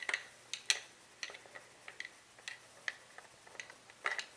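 Irregular light metallic clicks and taps, about a dozen, as parts of a Remington Versamax semi-automatic shotgun are handled and fitted back into the receiver during reassembly.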